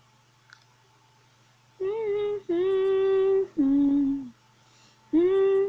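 A boy's voice carrying a wordless tune in long held notes, starting about two seconds in: three notes, the third lower, then another after a short pause.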